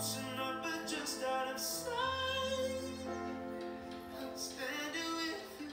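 A slow live ballad: a male vocalist singing long, wavering held notes, backed by piano and electric bass guitar, heard through a television's speakers.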